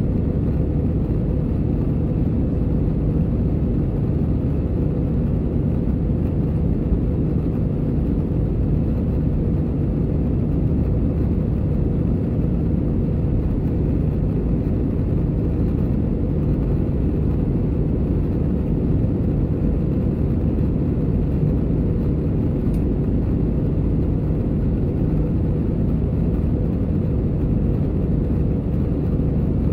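Airbus A320 cabin noise in flight: a steady low drone of the jet engines and rushing airflow, with a faint steady hum, heard from inside the passenger cabin.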